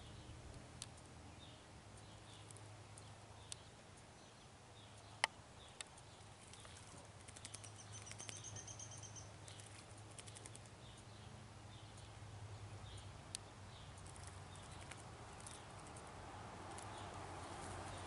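An American robin bathing in shallow water, splashing and shaking water off its feathers: scattered faint light clicks and patter, with one sharper tick about five seconds in. Faint short high chirps from other birds early on and a brief high trill about eight seconds in, over a steady low hum.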